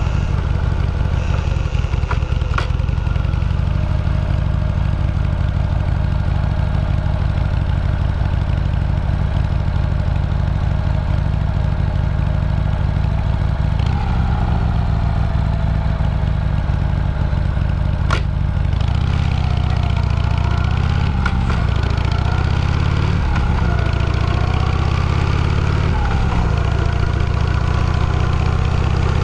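A vehicle's engine running steadily under way, its pitch rising and falling several times in the second half as it speeds up and eases off.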